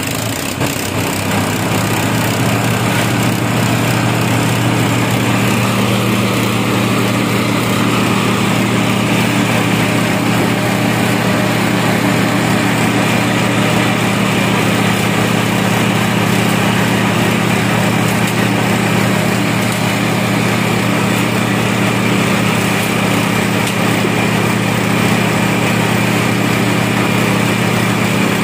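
Small petrol engine belt-driving a compost grinding machine, speeding up in the first second or two and then running steadily at high speed while dried compost is fed in and ground.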